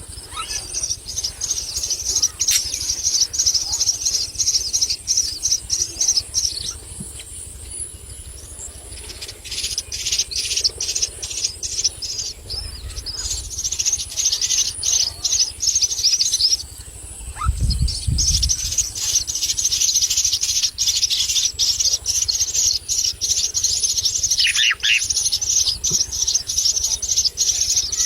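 Myna chicks begging: rapid, high, raspy chirping in long bouts, with short pauses about a quarter of the way in and just past halfway. A brief low rumble sounds about two-thirds of the way through.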